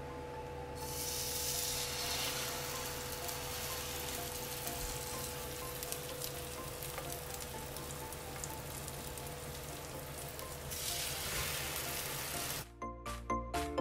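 French toast, bread dipped in egg, sizzling in hot fat in a frying pan. The sizzle swells about a second in and again shortly before the end as slices are laid in and pressed down, then cuts off suddenly near the end and gives way to music with a chiming beat.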